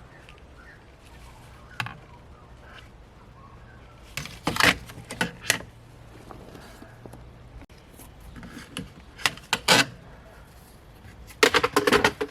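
Clicks, knocks and rattles of plastic centre-console trim being handled and pulled out, coming in short clusters several times.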